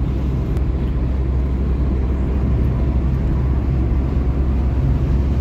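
Steady engine and road noise heard from inside the cabin of a 2002 Toyota car cruising at about 60 to 70 km/h, a low even rumble.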